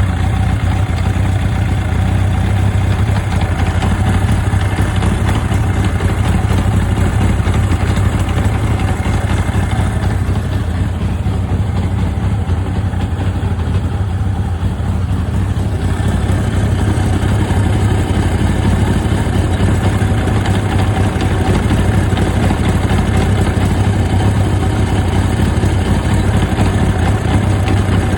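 Suzuki GSX1100S Katana inline-four idling steadily, with an abnormal noise that the owner suspects comes from a loose clutch center nut. The higher-pitched part of the noise fades for about five seconds near the middle, then returns.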